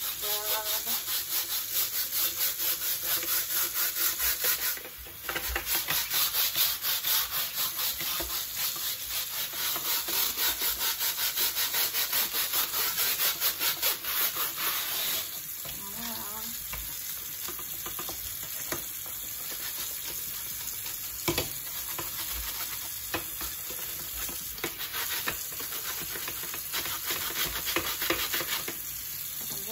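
A stiff scrub brush scrubbing a metal mesh grease splatter shield in quick back-and-forth strokes, several a second, under a running tap. There is a brief pause about five seconds in. About halfway through the strokes ease off and the steady splash of the running tap is mostly what is heard.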